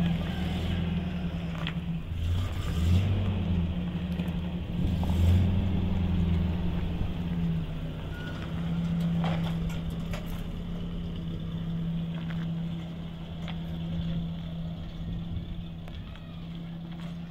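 A motor vehicle's engine running, its pitch rising briefly twice in the first few seconds, then running steadily and growing fainter near the end.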